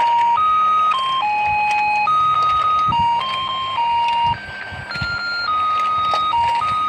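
Battery-powered toy fishing game playing its electronic tune: a simple beeping melody of single held notes, dipping briefly quieter a little past the middle.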